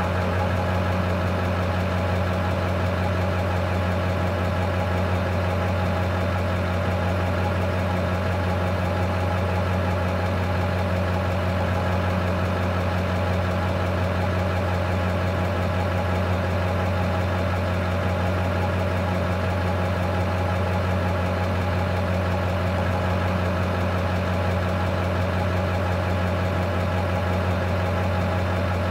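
Diesel engine of a Class A truck tractor idling with a steady, unchanging low hum.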